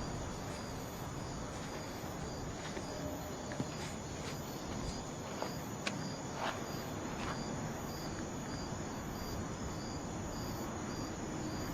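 Crickets chirping in an even rhythm, about two chirps a second, over a steady low outdoor noise, with a few faint clicks.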